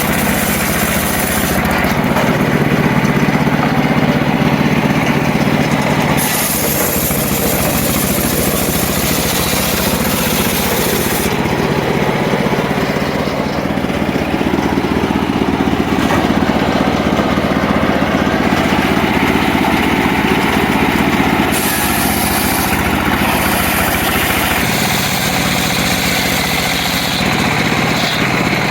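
Motor-driven circular saw running steadily as wood is cut, a continuous engine-like drone whose upper tone changes abruptly several times.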